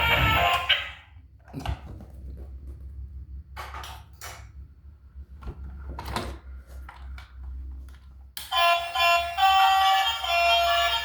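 Music that cuts off about a second in. For the next seven seconds or so there are only a few scattered knocks and clicks over a low hum. Music with a tune comes back near the end.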